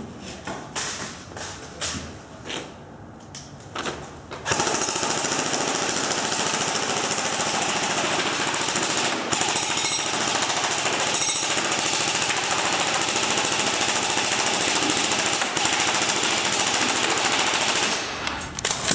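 Echo 1 Red Star LMG airsoft electric gun firing one long full-auto burst of about thirteen seconds: a fast, even rattle that stops shortly before the end. A few scattered sharp clicks come before the burst begins.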